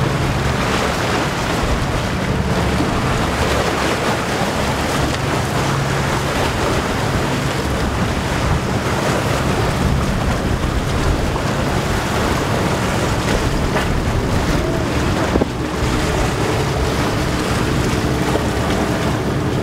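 Cruisers Yachts 540 Sports Coupe motor yacht running at speed: a steady low engine drone under the rush of its bow wave and wake on choppy water, with wind buffeting the microphone.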